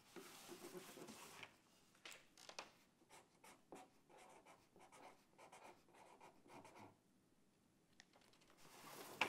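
Felt-tip marker writing on a paper-covered cardboard box lid: faint, short scratchy strokes with small gaps, after a brief rustle of paper sheets near the start.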